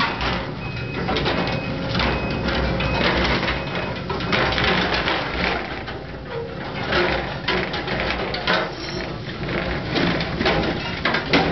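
Excavator-mounted Poqutec hydraulic demolition shear crushing and tearing into a steel tank, with irregular metal crunching, creaking and knocks over the excavator's steady diesel drone. Short high squeaks come in the first few seconds.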